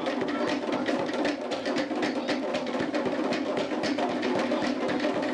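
Fast Polynesian drumming: a rapid, even run of sharp strikes, several a second, with no break.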